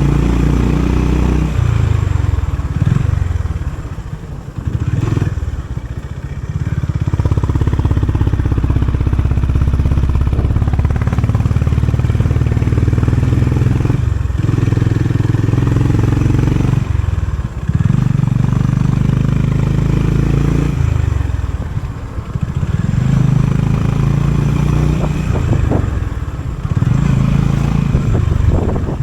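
Honda CB350 RS motorcycle's single-cylinder engine running through its stock exhaust. The sound drops briefly about five times and picks up again, as the throttle eases off and opens.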